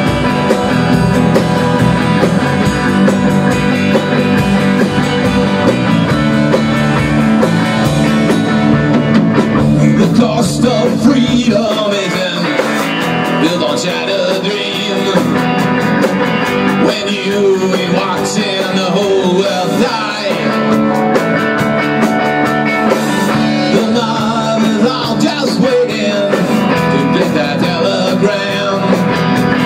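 A rock band playing live: drum kit with cymbals and electric guitars in a steady rock groove. The deepest notes thin out about twelve seconds in.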